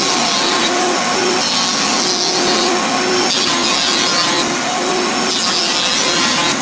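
Thickness planer running, its cutterhead planing wooden boards as they feed through; a loud, steady machine noise whose cutting hiss comes and goes as each board passes.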